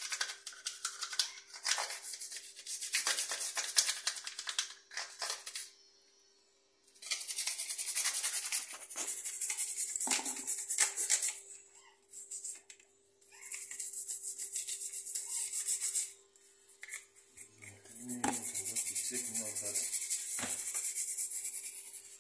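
Rapid scrubbing strokes on the plastic lint filter of a Samsung top-loading washing machine, in bursts of a few seconds with short pauses between. A faint steady hum lies underneath.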